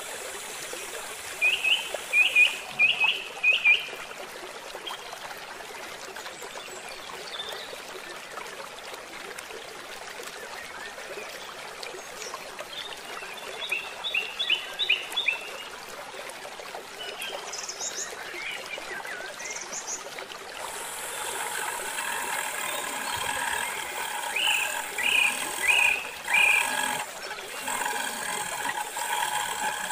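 A steady outdoor hiss with an animal's call, a quick run of four or five high chirps, heard three times: near the start, about halfway and near the end. From about two-thirds of the way in, a set of steady high tones joins the background.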